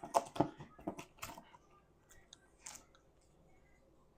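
Old tape seal on a cardboard shoebox being cut: a quick run of short, sharp snips and crackles, then a few fainter ones about two to three seconds in.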